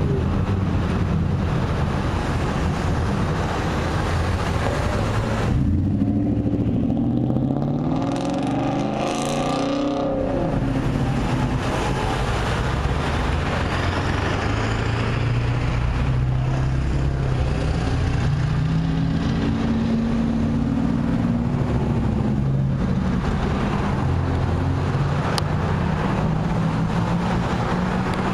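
Road traffic: several cars and trucks accelerating and driving past, their engine notes rising and falling as they speed up and go by.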